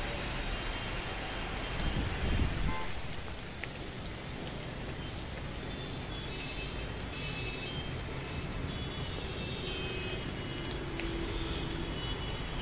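Steady hiss of falling rain, with a brief low rumble about two seconds in.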